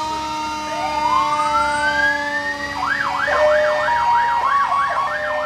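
Fire engine sirens: an electronic siren rises in a wail over about two seconds, then switches to a fast yelp of about two and a half sweeps a second. A steady held tone from another siren or horn runs underneath.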